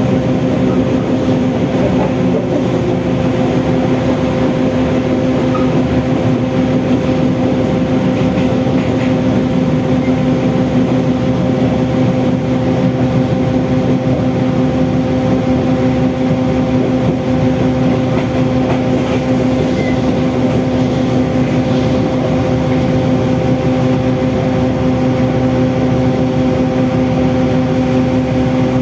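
Diesel multiple-unit commuter train (KRD) running at a steady speed, heard from inside the carriage: an even, unchanging drone with a constant hum over the running noise.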